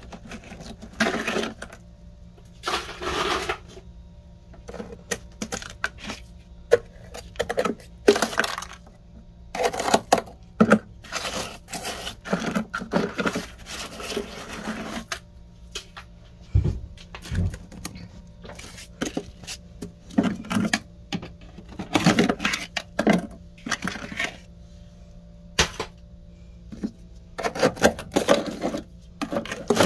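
Frost being scraped and chipped off the inside walls and floor of a freezer with a thin metal tool and gloved fingers: irregular runs of scratchy, crunching strokes with short pauses between them, over a steady faint hum. Two dull knocks about halfway through.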